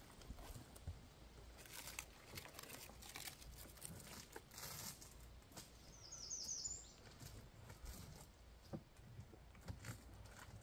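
Faint crackling and rustling of a small kindling fire of sticks and birch bark in a steel fire box. A bird gives a quick run of four high, falling chirps about six seconds in.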